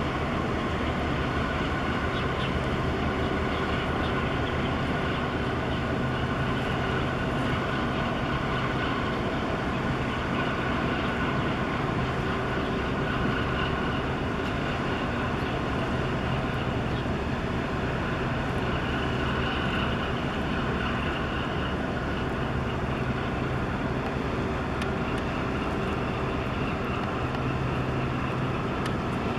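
Steady, even drone of ship engines on the water: a constant low hum with fainter steady whines above it.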